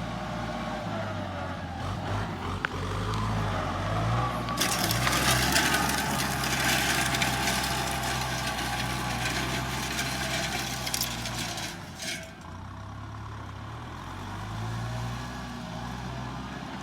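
Tractor engine running steadily at a low idle. A loud hiss joins it about four seconds in and cuts off abruptly about twelve seconds in.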